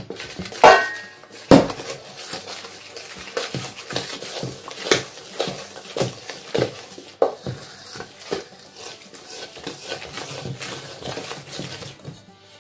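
Wooden spoon stirring flour into a batter in a large stainless-steel mixing bowl, with irregular knocks and scrapes against the metal. Two sharp clanks of metal come in the first two seconds, the first with a brief ring.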